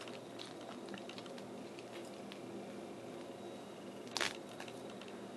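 Faint handling noise as a die-cast model trailer is lifted out of its styrofoam packaging: light clicks and rustles, with one louder brief scrape about four seconds in, over a faint steady hum.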